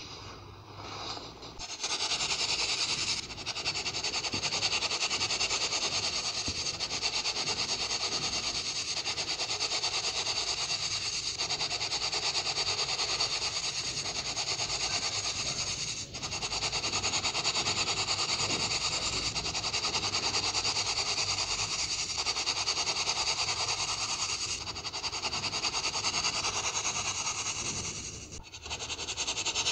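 Baking soda being shaken through a fine plastic mesh sieve: a steady hissing rustle of powder on mesh, broken briefly about halfway through and again near the end. Softer crunching of hands crushing the powder comes before it, in the first two seconds.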